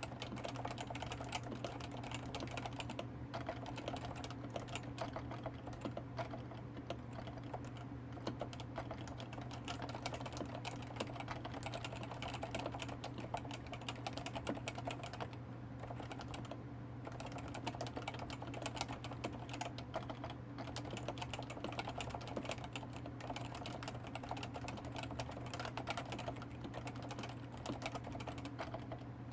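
Realforce 104U keyboard with 45 g Topre electrostatic capacitive switches and ABS keycaps, typed on quickly and continuously, with many keystrokes a second. A steady low hum runs underneath.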